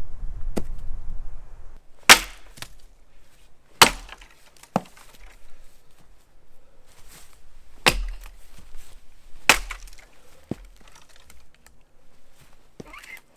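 Axe chopping into wood: about eight sharp strikes at uneven intervals of one to three seconds, some loud and some lighter.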